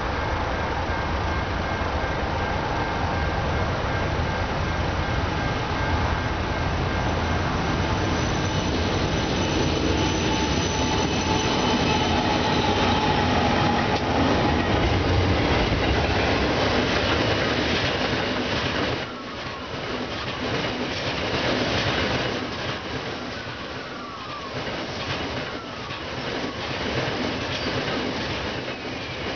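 A diesel freight train passing at speed. For the first two-thirds the locomotives' engines run with a deep steady hum. Then, as the wagons go by, the level drops and the wheels clack over the rail joints with occasional squeals.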